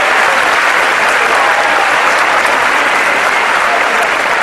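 Audience applauding steadily, a dense continuous clapping.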